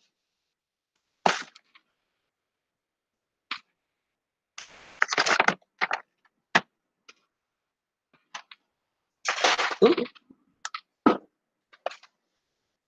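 Scattered sharp clicks and knocks, a few of them loud cracks, in short clusters with dead silence between.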